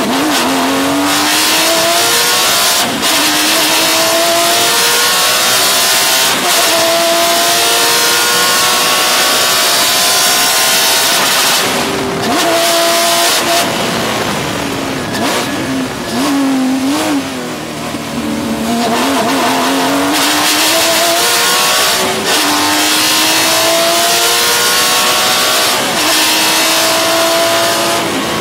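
Porsche 996 GT3 Cup's flat-six racing engine pulling through the gears, its pitch climbing and dropping back at each upshift several times. About halfway it falls away for a few seconds to a low, wavering pitch before climbing through the gears again.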